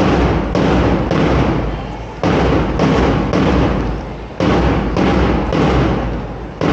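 Loud, heavy thuds in a repeating rhythm, roughly two a second in groups of three or so, each with a long echoing decay.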